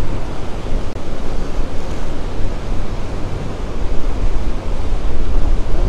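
Steady wind rushing over the microphone with a heavy low rumble, over choppy water lapping.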